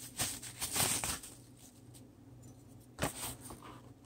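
Bubble wrap rustling and crinkling as it is pulled off an air fryer's round grill plate: a few short rustles in the first second, then quiet, then another brief rustle about three seconds in.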